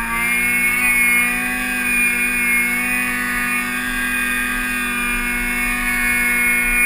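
Snowmobile engine running hard at a nearly steady pitch as the sled ploughs through deep powder snow.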